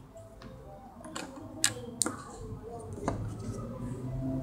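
A few sharp taps and clicks of things being handled and put down on a tabletop, with faint voices in the background.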